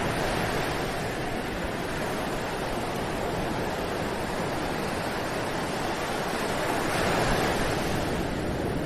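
Ocean surf: waves breaking and washing on a beach in a steady rush, swelling a little louder about seven seconds in.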